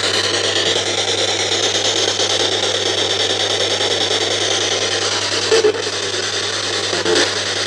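Ghost box (spirit box) running: a continuous loud hiss of radio static with a steady low hum underneath. Two brief louder snippets cut in near the end.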